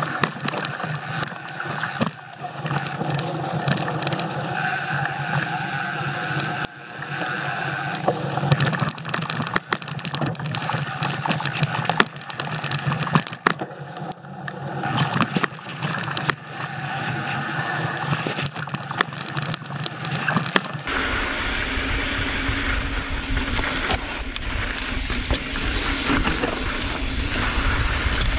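Mountain bike descending a rough dirt trail: tyre noise and rapid rattling knocks from the bike over bumps and rocks. For the last several seconds this gives way to a steady low rush of wind buffeting the microphone.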